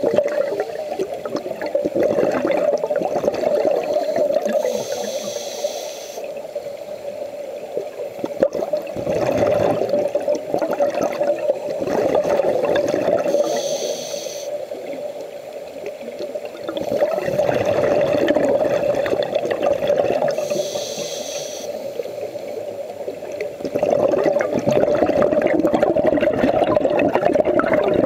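Scuba diver breathing through a regulator underwater: long bubbling exhales alternate with three short hissing inhales, several seconds apart. A steady hum runs underneath.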